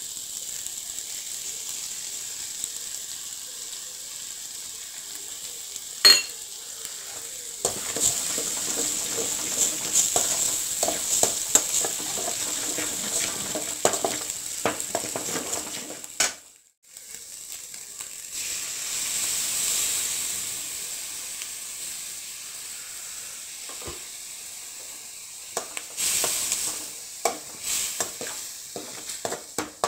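Vegetables and egg sizzling steadily in hot oil in a metal kadai, with a spoon stirring and scraping against the pan at times and one sharp click about six seconds in.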